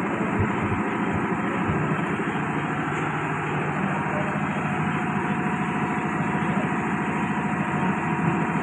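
Steady mechanical drone, even in loudness.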